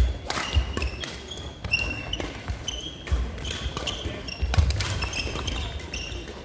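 Badminton doubles rally: sharp racket hits on the shuttlecock, and shoes squeaking and feet thudding on the wooden court floor at an irregular pace.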